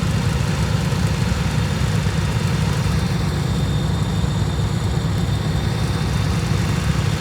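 Cub Cadet lawn tractor engine running steadily at an even speed.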